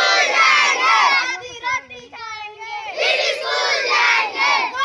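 A crowd of schoolchildren shouting slogans in call and response: one child's voice calls out and the whole group shouts back together. The group shout comes twice, once at the start and again about three seconds in, with the single call between them.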